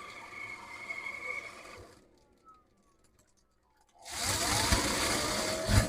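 A steady frog and insect chorus for about two seconds, then a short pause. After that comes the loudest sound: the van's portable toilet being flushed, a loud rush of water with a slowly rising whine.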